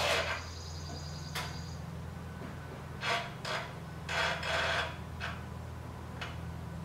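Short scrapes and rubs, about seven in all, as a wooden 4x4 post is shifted and lined up on a miter saw, over a steady low hum.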